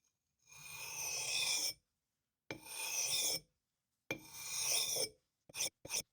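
Hand filing strokes: three long, slow scraping passes with pauses between, then quicker short strokes at about four a second near the end.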